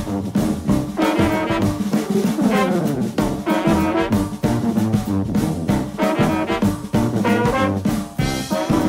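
Background music: brass-led jazz with a steady beat.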